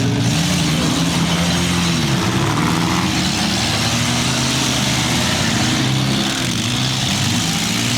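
Several small car engines running at once in a mini-car demolition derby, revving up and down with the pitch rising and falling repeatedly.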